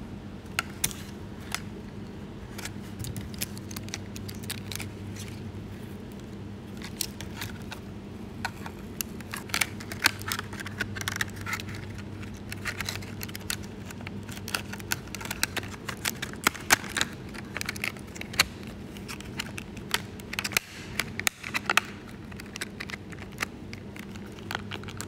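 Irregular plastic clicks, taps and light rattles from hands handling the ESKY 300 V2 micro helicopter's plastic fuselage and canopy, over a steady low hum.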